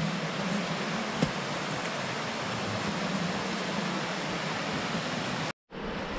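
Steady rush of a river running over rocks, with one sharp knock about a second in. All sound drops out for an instant near the end.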